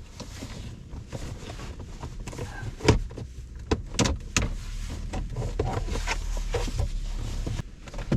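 A trim pry tool working a leather-covered center-console side panel loose: scraping and rustling with several sharp clicks and knocks as the panel's clips give, the loudest about three seconds in and two more about a second later.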